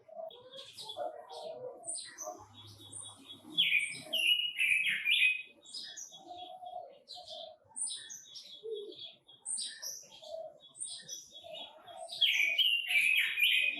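Red-billed leiothrix (Pekin robin) singing: a loud, rapid warbling phrase about four seconds in and another near the end, with scattered short high chirps in between.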